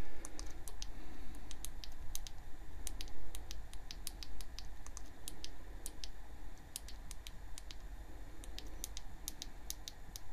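Irregular sharp clicks of buttons being pressed to step through a camera's on-screen settings menu, some in quick pairs.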